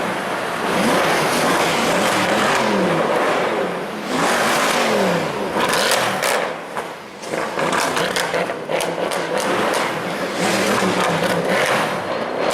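Mercedes-AMG C63 V8 engine and exhaust being revved hard, the pitch climbing and dropping again and again, with a run of sharp cracks from about six to ten seconds in.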